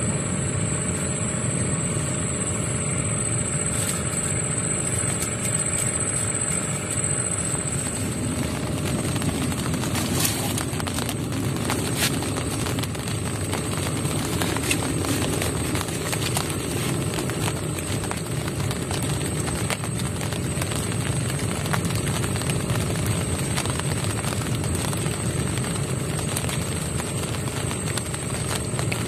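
Wind rumbling steadily on the microphone, with a thin steady high whine over it and a few faint clicks.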